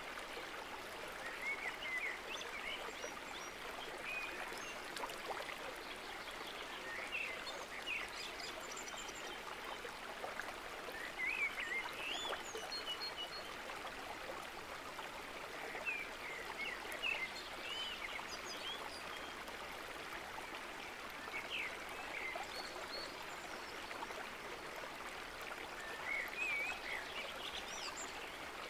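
Stream running steadily, with short bird chirps scattered through it.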